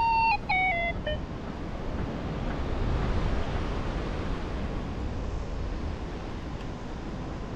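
Steady wind rushing over the microphone during a paragliding flight. It opens with about a second of electronic tones that step down in pitch and then stop.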